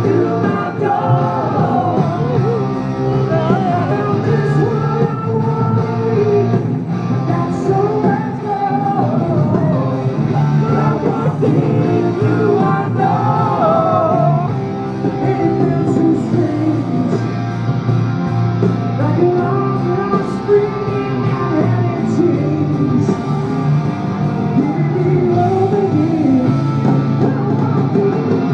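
Rock band playing live with singing over electric guitars and drums, loud and continuous, heard from among the audience in a large hall.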